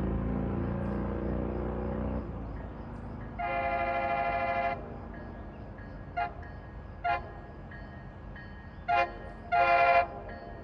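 MBTA F40PH-3C diesel locomotive rumbling past for the first couple of seconds. Its air horn then sounds a chord: one long blast, three short toots and a last, slightly longer blast, which is the loudest sound.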